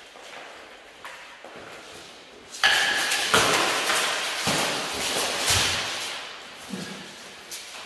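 Armoured fencers' mail and armour clattering as they close in and grapple with training daggers: a sudden clash about two and a half seconds in, then a run of knocks and thuds that dies down near the end.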